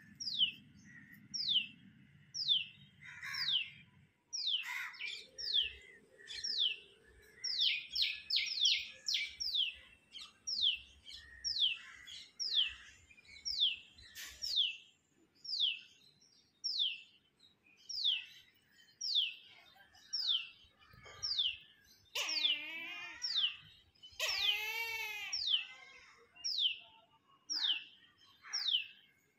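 Bird chirping: a quick, high whistle falling in pitch, repeated about once a second, with a denser flurry of them early on. About three-quarters through come two longer wavering calls with several overtones.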